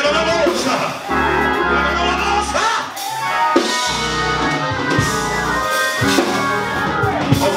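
Live church praise music: a band with a sustained bass line, and voices singing over it.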